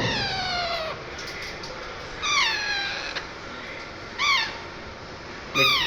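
Pet parrot calling four times, each call a pitched, meow-like cry that slides downward, spaced about two seconds apart.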